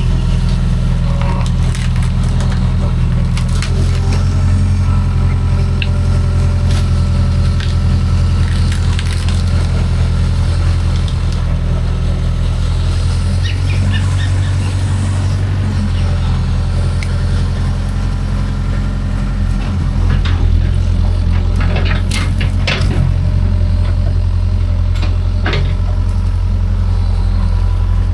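Kobelco excavator's diesel engine running steadily, with wood cracking and splintering as brush and branches are crushed. The sharpest snaps come about three-quarters of the way through.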